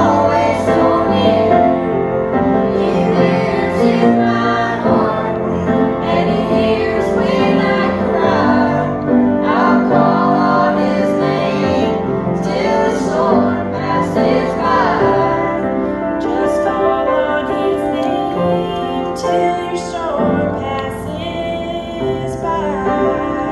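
A small group of young voices, a girl's and boys', singing a song together to grand piano accompaniment.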